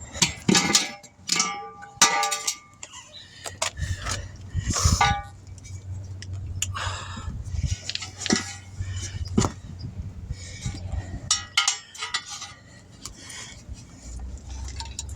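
Metal tools and parts clinking and knocking during a tire change, many separate sharp strikes, some ringing briefly, with a low steady hum underneath at times.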